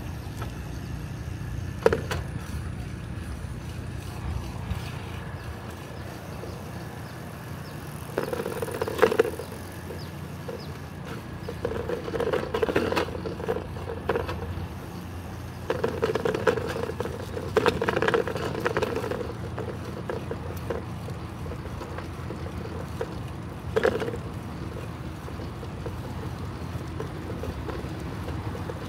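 Bicycle riding along a paved park path, heard from the handlebars: a steady rumble of tyres and wind on the microphone, with several louder stretches of rattling in the middle and a couple of short knocks.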